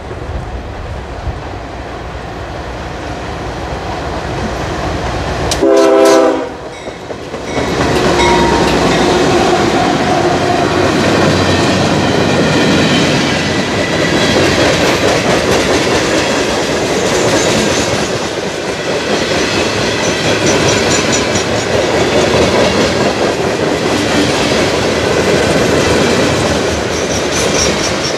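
A freight train's low rumble building as it approaches, then a short blast of the locomotive's air horn about six seconds in, the loudest sound. The train then passes close by, its freight cars' wheels clattering over the rail joints in a steady din.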